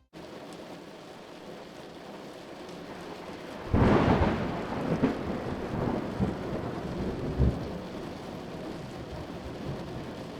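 Heavy rain falling steadily, then about four seconds in a loud thunderclap that rumbles on and fades over the next few seconds.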